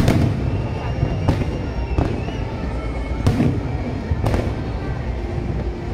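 Aerial firework shells bursting: five sharp bangs, roughly a second apart, over a continuous low rumble.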